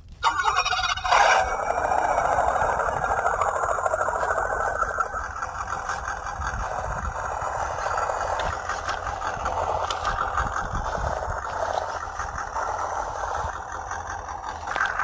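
WPL C24 RC crawler truck driving: its small electric motor and gearbox whine steadily, starting suddenly just after the start and loudest about a second in, with its tyres crunching over dry leaves.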